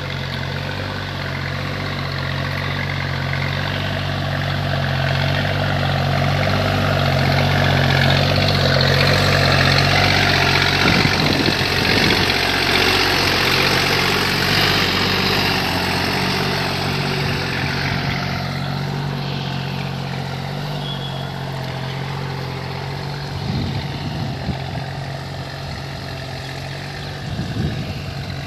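Deutz-Fahr Agrolux 50 hp tractor's diesel engine running steadily while the tractor works a tilled field, getting louder around the middle as it passes close by and easing back as it moves away.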